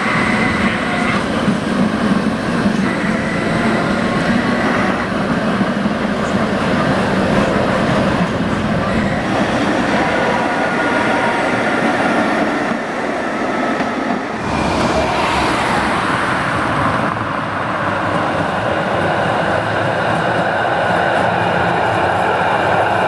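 Articulated trams, Tatra KT4D cars among them, running past close by on street track: a steady, loud rumble of wheels on rail and traction equipment. A thin squeal runs over it in the first few seconds, and the sound dips and changes about two-thirds through as a different tram comes by.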